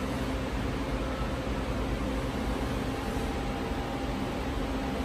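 Steady hum and hiss of machine-shop motors and fans, with a few faint steady tones underneath.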